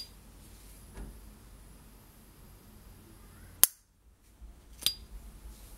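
S. T. Dupont Ligne 1 gas lighter's lid flicked open with its metallic ping, a high clear tone that rings on after the click. A little past halfway the lid snaps shut with a sharp click, the loudest sound here. About a second later it is flicked open again with another ringing ping.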